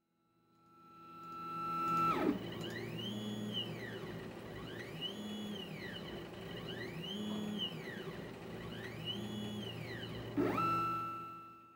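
Electronic intro music that fades in and out: a held tone drops away, then four slow sweeps rise and fall in pitch about two seconds apart, and the held tone returns near the end.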